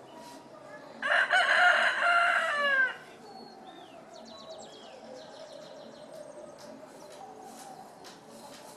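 A rooster crowing once, about a second in, a loud call of about two seconds that ends on a falling note.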